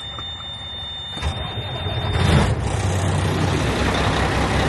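Mack dump truck's diesel engine idling, getting much louder about a second in. A steady high beep sounds over the first two seconds.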